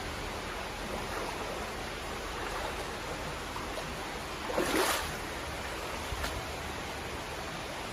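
Steady rushing of creek water, with a brief louder whoosh of noise about halfway through.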